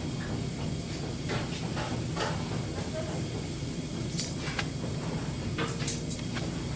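Buffet-restaurant clatter: scattered clicks and knocks of dishes and serving utensils over a steady hum, with faint background voices.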